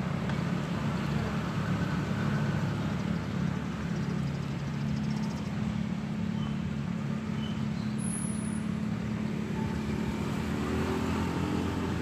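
Steady low hum of road traffic, with motor engines running.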